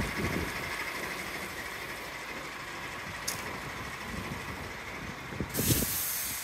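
Car-transporter lorry's diesel engine idling steadily, with footsteps and a click. Near the end, a sudden loud hiss lasting under a second.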